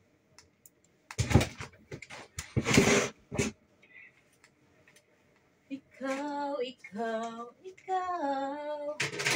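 Clothes and plastic storage bins rustle and knock as they are handled, with two loudest bursts about a second in and just under three seconds in. Then a woman sings three short phrases of held notes.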